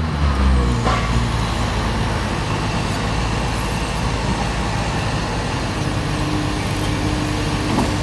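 Heavy forklift's diesel engine running steadily as the truck drives with a load on its forks; a faint steady whine comes in near the end.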